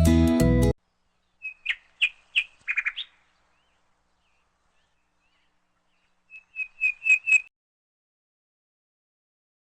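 A songbird calling in two short phrases of quick, high, repeated chirps, the second about five seconds after the first. Background music cuts off abruptly just before.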